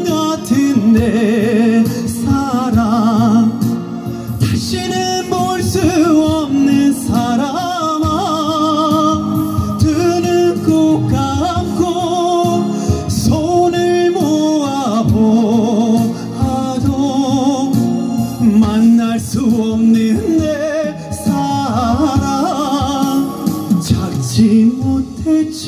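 Male singer singing a Korean trot ballad live into a microphone over a recorded backing track through a PA system, his held notes wavering with vibrato.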